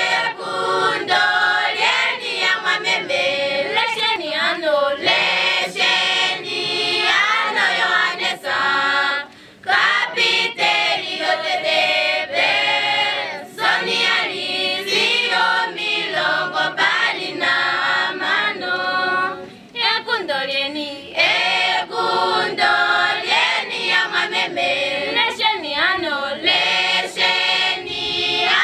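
School choir of teenage girls and boys singing unaccompanied in parts, with two short breaks between phrases.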